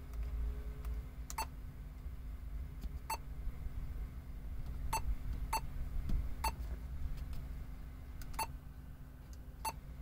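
Touch-key beeps from a Boss double-DIN touchscreen car stereo as its on-screen menu buttons are pressed. There are seven short, high beeps at irregular intervals over a low, steady hum.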